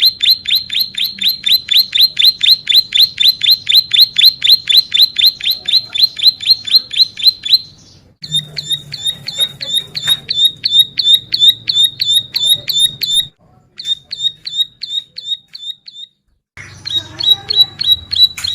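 Ciblek sawah, a prinia, singing a long fast trill of sharp, high, repeated notes at about six a second, broken by short pauses near the middle and toward the end.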